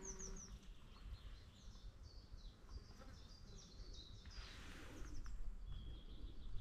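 Faint birdsong: small birds giving quick series of short, high chirps over a low outdoor rumble.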